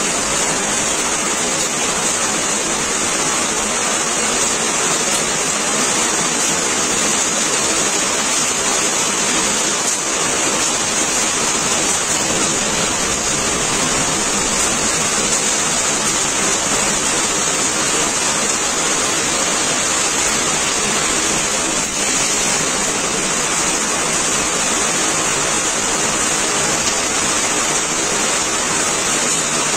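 Heavy rain falling steadily on a flooded street, a loud, even hiss of rain on running water.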